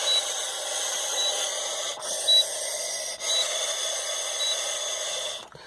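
A person blowing one long, steady breath into an Intoxalock ignition interlock breath-test handset, a hiss broken by two brief gaps. The device gives a short high beep about once a second during the blow.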